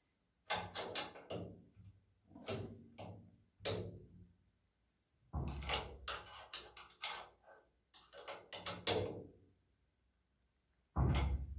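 Bursts of sharp metallic clicks, clinks and rattles with short quiet gaps between them: a swivel caster's steel mounting plate, bolt and hand tools handled against a steel saw frame as the caster is bolted on.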